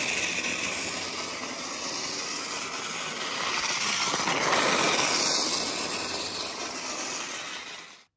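Motorized Chad Valley Flexi Track race car running around its plastic track, a steady loud whirring buzz of the toy's motor and wheels that swells about halfway through and cuts off suddenly near the end.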